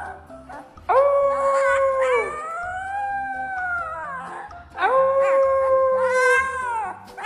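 Husky puppy howling: three long howls in a row, each holding a steady pitch and ending in a downward slide.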